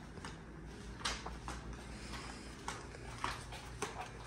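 Faint footsteps on a tile floor: several light taps, mostly about half a second apart.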